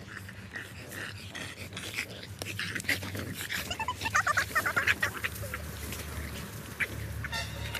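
Small dogs panting and scuffling in sand, busiest about four to five seconds in, with a brief high-pitched whine near the end.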